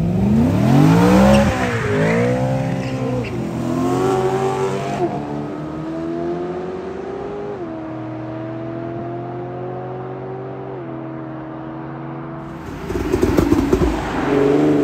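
Sports car engines revving hard as cars accelerate away, their pitch sweeping up and down. One car then pulls away through the gears, its note climbing steadily and dropping twice at upshifts. Near the end a car passes close with a loud rough crackling burst, and revs rise again.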